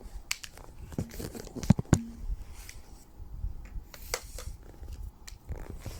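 Irregular clicks, taps and rustles, with two sharp knocks in quick succession a little under two seconds in, over a low rumble.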